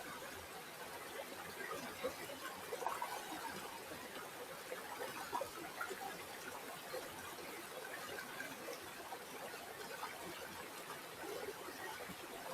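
River water flowing, a steady babble dotted with many small gurgles.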